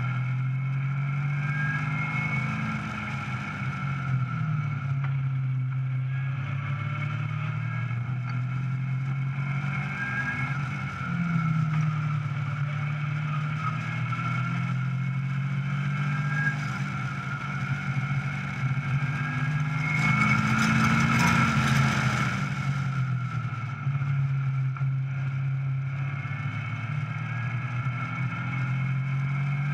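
Caterham 420R's 2.0-litre four-cylinder engine driven hard on a race track, revs climbing and falling repeatedly through gear changes and braking, with wind rushing past the open car. About two-thirds of the way in there is a louder stretch of rushing noise over the engine.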